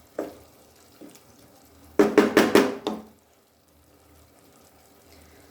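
Spatula or spoon working in a pan of frying vegetables and tomato: a couple of single strokes, then a quick run of louder scraping and stirring strokes about two seconds in, then quiet.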